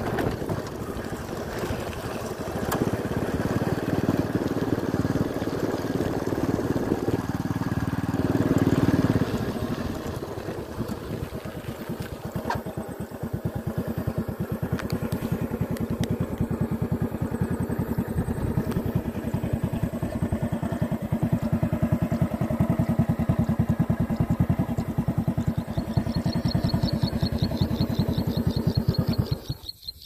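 Motorcycle engine running while riding, easing off about nine seconds in to a steady idle, then switched off just before the end. Crickets chirp in a fast high rhythm over the last few seconds.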